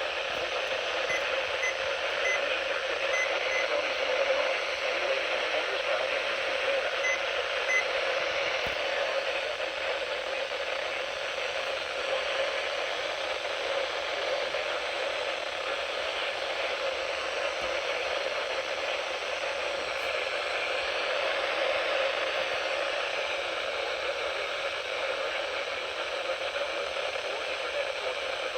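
Steady radio static hiss from a weather radio receiver between broadcasts, with no voice or alert tones.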